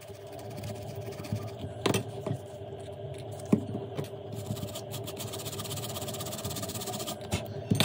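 Small brush scrubbing a phone's battery connector on the circuit board: light scratchy strokes with a few sharp clicks, over a steady machine hum.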